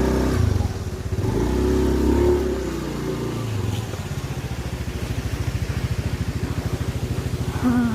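Motorcycle engine running: it picks up a little in the first three seconds, then settles to an even idle beat.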